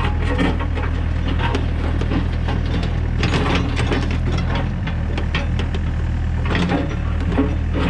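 Excavator's toothed bucket raking dirt and stones toward the machine: a steady run of crunching, scraping and clattering, louder about three seconds in and again near the end, over the steady hum of the excavator's engine.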